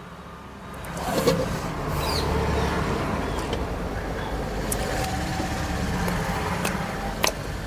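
A motor vehicle's engine running close by, coming up about a second in and then holding steady, with a few faint clicks.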